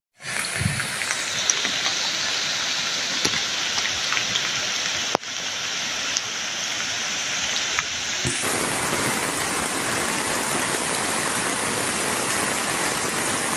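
Steady hiss of heavy rain, with scattered sharp ticks of drops hitting nearby surfaces; the sound changes abruptly about five seconds in and again about eight seconds in.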